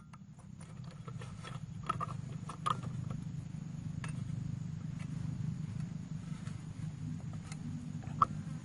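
A few sharp metal clicks and clinks as a cutting blade is fitted onto a brush cutter's head, over a steady low background hum.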